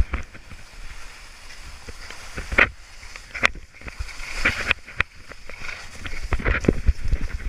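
Skis scraping and sliding through wet spring slush, a hissing rush that swells and fades with each turn, over a low rumble of wind on the microphone.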